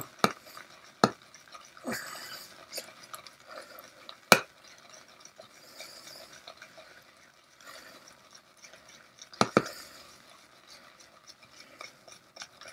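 Shaving brush whipping soap into lather in a shaving bowl: a soft wet swishing, with a few sharp clicks as the brush knocks against the bowl, the loudest about four seconds in and a quick pair near ten seconds.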